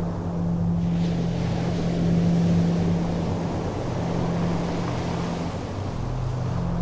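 Harbour ambience: a boat engine humming steadily at a low pitch, with wind noise on the microphone.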